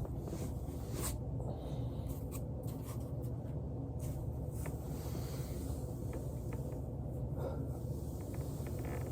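A person rolling on a foam roller: soft rustling and scraping of body and clothing against the roller over a steady low hum, with a few faint light ticks.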